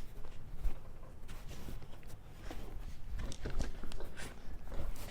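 Plastic leaf-blower tube sections being pushed and twisted together: irregular light clicks and knocks of plastic on plastic.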